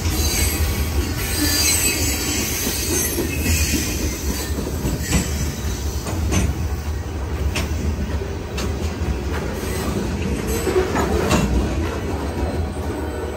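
Freight train's covered hopper cars rolling past close by: a steady low rumble of steel wheels on rail, with high-pitched wheel squeal in the first few seconds and sharp clicks about once a second through the middle.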